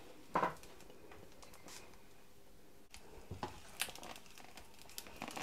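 Faint squishing and a few soft clicks from a metal idiyappam press as rice-flour dough is squeezed out into strings.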